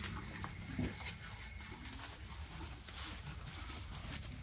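Cows feeding at a trough: chewing and rustling through chopped grass stalks, with scattered crunches and a brief louder sound about a second in.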